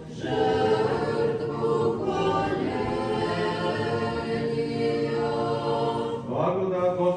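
Choir singing a cappella in long held chords, moving to a new chord near the end.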